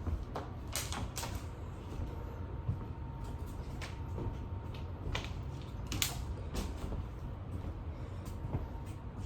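Irregular short knocks and rustling swishes of a person moving through a home workout, over a steady low hum.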